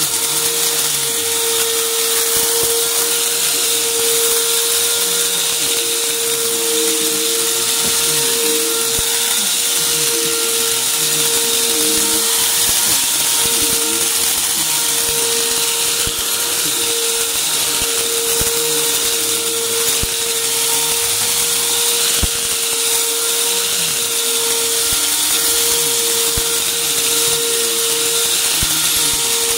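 Upright vacuum cleaner running on carpet and sucking up grit, with a steady high hum and faint crackling ticks as debris goes up the nozzle. A lower tone wavers up and down as the vacuum is pushed back and forth.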